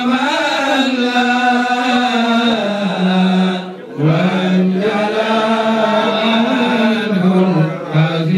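Chanting voices singing long, held notes in a slow melodic line, with a brief break about four seconds in and another near the end.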